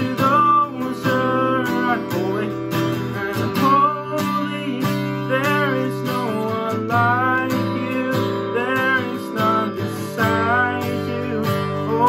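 Acoustic guitar strummed steadily, with a man singing a worship song over it.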